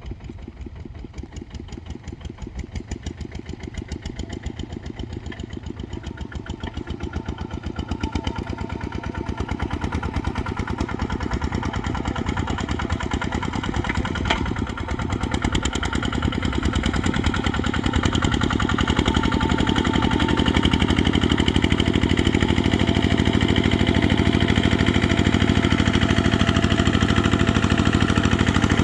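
Kubota RT140 single-cylinder diesel engine running with a fast, even chug, growing steadily louder until about two-thirds of the way through, then holding steady.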